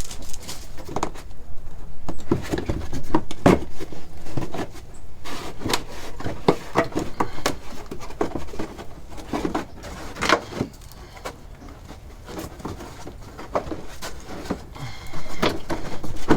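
Irregular clicks and knocks of hand tools and metal parts being worked on a car's rear suspension during a shock absorber change.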